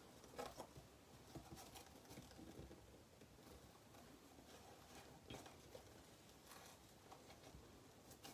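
Near silence with faint, scattered rustles and light taps of fingers working a satin ribbon bow on a card box.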